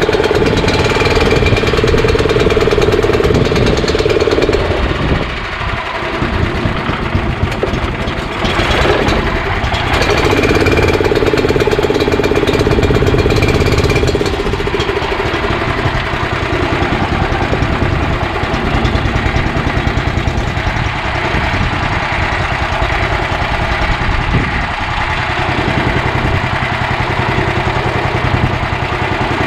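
Honda GX340 single-cylinder engine in a utility golf cart running steadily, its tone shifting a couple of times.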